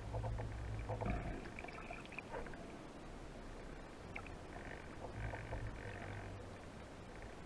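Muffled underwater ambience: a low water rumble that swells twice, with scattered faint clicks and crackles.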